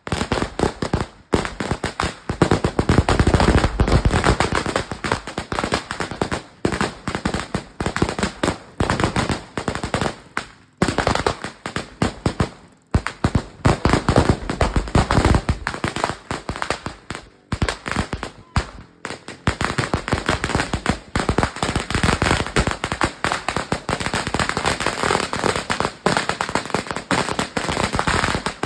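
A long 5,000-round firecracker string going off in a continuous rapid chain of bangs, with a few brief pauses between stretches.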